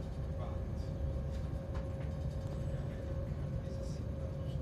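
Passenger train running, heard from inside the carriage: a steady low rumble with a faint constant hum and a few light clicks.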